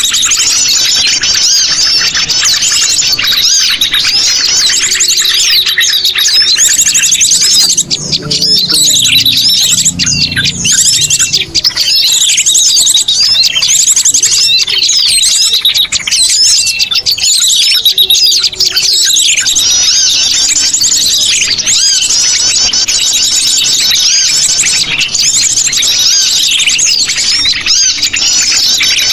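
Sogon birds calling noisily: a dense, continuous chatter of rapid, overlapping high chirps from several birds, played as a lure call for trapping.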